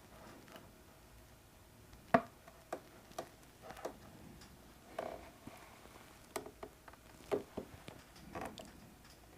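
Scattered light clicks and taps of hand-held plastic parts being handled and pressed into place, with a sharper knock about two seconds in.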